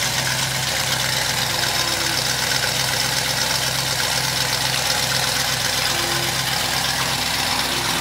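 Car engine idling steadily, an even low hum with no revving.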